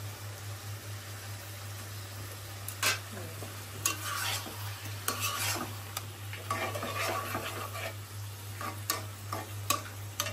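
A cooking utensil stirring and scraping through a pan of prawn curry, with scattered knocks against the pan starting about three seconds in. A steady low hum runs underneath.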